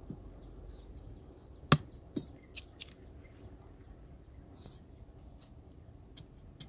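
Sharp knocks and clicks of sticks and tools being handled while a wooden trap is built. The loudest comes about two seconds in and is followed quickly by three lighter ones; two more come near the end.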